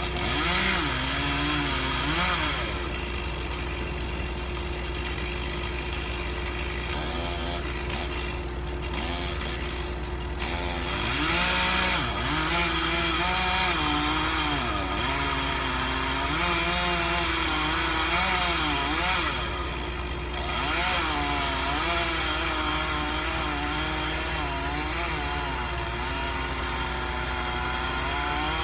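Chainsaw engine running through cuts, its pitch rising and falling again and again, over a second engine holding a steady pitch.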